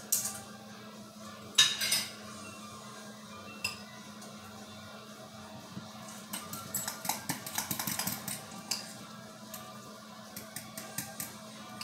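Metal spoon clinking and scraping against a glass mixing bowl while stirring and mashing deviled-egg yolk filling, with a flurry of quick clinks between about six and nine seconds in.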